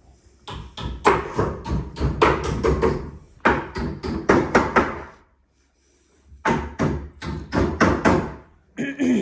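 Rapid hammer blows on kitchen benchtop cabinetry, knocking it apart: a run of about three or four sharp strikes a second, a short pause, then a shorter second run.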